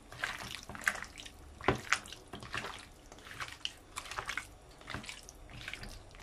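Hands squishing and kneading raw diced chicken fillet in a wet marinade of soy sauce and ketchup, making irregular wet squelches and slaps a few times a second.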